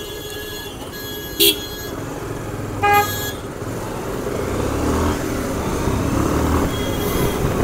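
Two short vehicle horn toots, about a second and a half and three seconds in, over a Bajaj Pulsar 150's engine and road noise heard from the rider's seat. The noise grows louder through the second half as the bike picks up speed on a clearing road.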